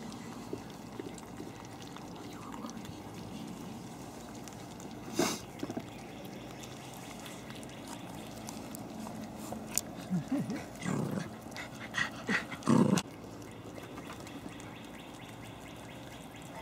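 Dogs making several short vocal sounds bunched between about ten and thirteen seconds in, the last the loudest, with one sharp knock about five seconds in.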